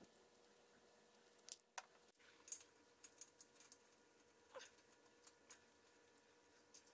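Faint scattered clicks and light metallic taps from a small brass drain valve and pipe fittings being handled: thread-seal tape wrapped onto the valve, then the valve screwed by hand onto an elbow fitting.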